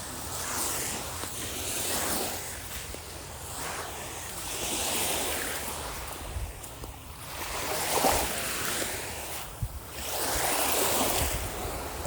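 Small waves breaking and washing up on a beach, a fresh surge of surf about every three seconds, with some wind on the microphone.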